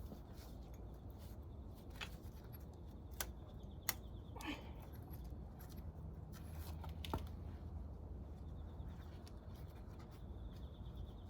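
A few scattered light clicks and knocks of engine parts and tools being handled, over a low steady hum.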